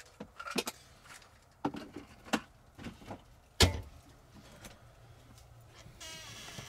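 Scattered light clicks and knocks of things being handled, with one louder, deeper thump about three and a half seconds in. A soft steady hiss comes in near the end.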